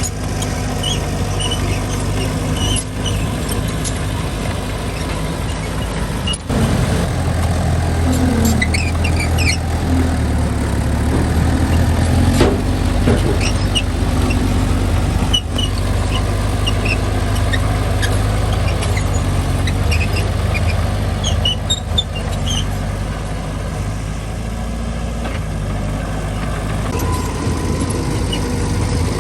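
Diesel engine of a small Mitsubishi bulldozer running steadily under load, louder for a few seconds about a third of the way in, with scattered short high squeaks from the working machine.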